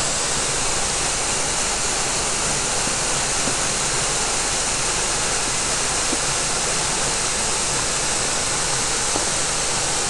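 Small creek waterfall pouring over a rock ledge into a pool: a steady rush of falling, splashing water.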